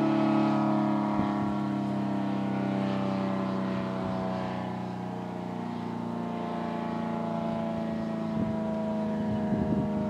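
ACA Allertor 125 rotating outdoor warning siren, reverse-wired, sounding a steady alert tone as its horn rotates. The chord holds with its pitch sagging slightly; it fades a little about halfway through and grows again as the horn swings back toward the listener.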